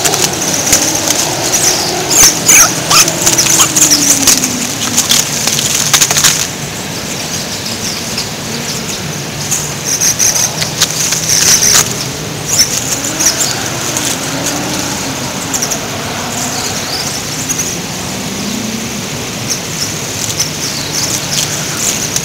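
Plastic food packaging crinkling and rustling as it is handled, in dense crackly spells that ease off around the middle. Under it, a low wavering tone slides slowly up and down.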